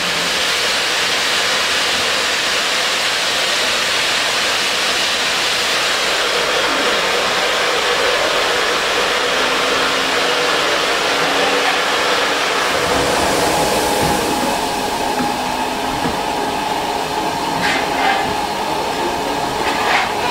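Steam locomotive hissing steadily and loudly. Faint steady tones join in about two-thirds of the way through, and there are a few short clicks near the end.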